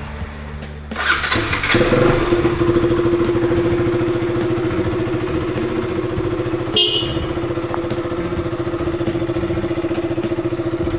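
KTM RC 200's single-cylinder engine started on the electric starter: about a second in it cranks briefly, catches and settles into a steady idle on a freshly fitted battery after long standing. A brief high-pitched beep sounds about seven seconds in.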